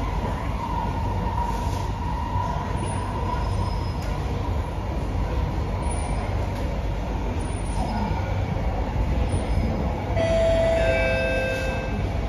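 SMRT C151B metro train running, heard inside the passenger car: a steady rumble of wheels and running gear on the track. Near the end a brief whine of several steady tones rises over it.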